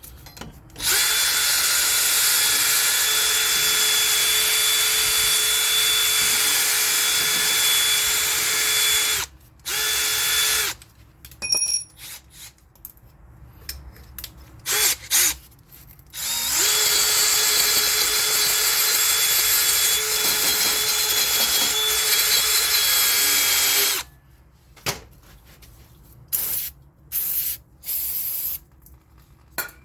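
Handheld electric power tool, drill-like, running at the front axle nut. It whines at a steady pitch in two long runs of about eight seconds each, with short on-off bursts between them and near the end.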